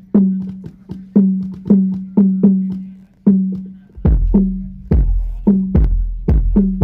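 Hadroh percussion played through a PA sound system during a sound check: hand-drum strikes, each ringing with a short pitched tone, in a steady rhythm of two to three a second. About four seconds in a deep bass drum joins in.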